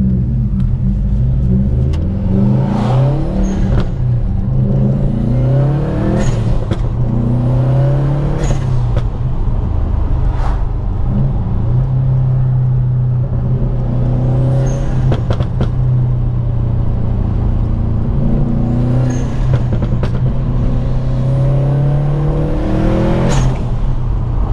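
Mapped Subaru WRX STI's turbocharged flat-four engine, heard from inside the cabin, accelerating hard. The engine note rises with each pull and breaks at each gear change, about six times.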